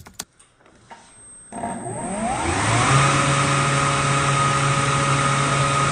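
Atlas 40-volt brushless cordless leaf blower switched on about a second and a half in, its fan spinning up in a rising whine, then running steadily at full speed with a rush of air. A few faint clicks come just before it starts.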